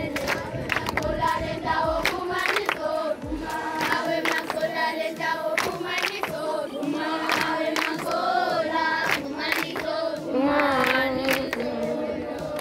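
A group of schoolchildren singing together as a choir, with sharp hand claps through the song.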